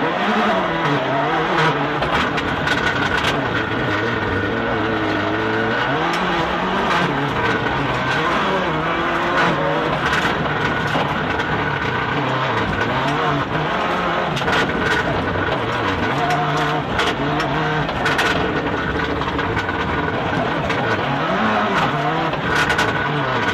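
Toyota Corolla WRC's turbocharged four-cylinder rally engine heard from inside the cabin, revving up and dropping back again and again as the car is driven hard through the stage.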